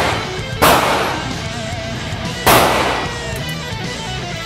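Two shots from a CZ Scorpion 9mm carbine, about two seconds apart, each ringing out briefly in the concrete indoor range, over background music.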